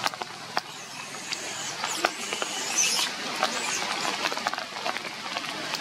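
Rain pattering on tree leaves, with scattered sharp drop ticks, and a few faint high-pitched squeaks about two to three seconds in.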